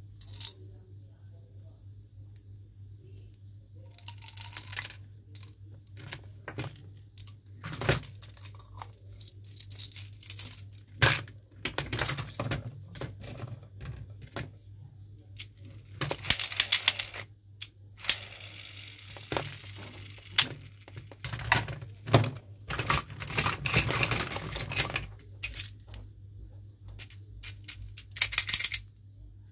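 Plastic candy toys and containers handled by hand: irregular clicks, taps and rattles of hard plastic and loose candies, with a few longer rattling, rustling stretches, over a steady low hum.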